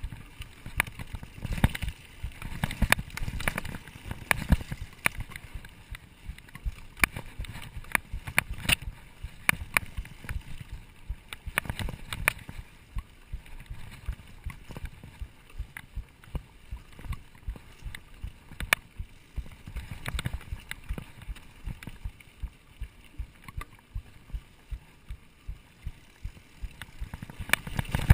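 Mountain bike riding over a dirt singletrack trail: a low rumble from the tyres and riding, with frequent irregular clicks and rattles as the bike bounces over the rough ground.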